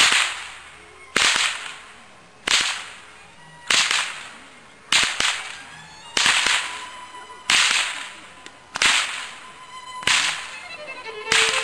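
Hungarian csikós herdsmen's whips (karikás) cracking, one sharp crack about every 1.2 seconds, about ten in all, each trailing off briefly.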